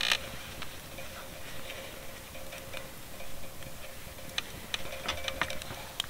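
Wood campfire crackling: sparse sharp pops, several close together in the last two seconds.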